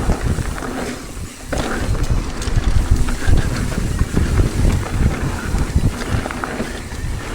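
Wind buffeting the microphone: a loud, uneven low rumble that eases off briefly about a second in and then comes back.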